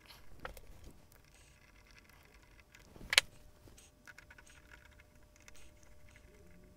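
Faint handling and small clicks as screws are put back to reattach an aluminium heatsink to the back of a subwoofer amplifier board, with one sharp click about three seconds in.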